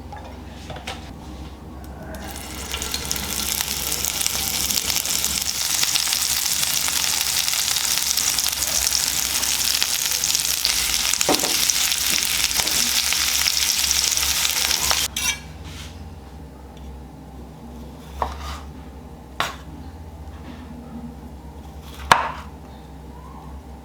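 Food sizzling in a hot frying pan, a steady hiss that builds up about two seconds in and cuts off suddenly past the middle; afterwards a few sharp clicks, like a utensil knocking against the pan.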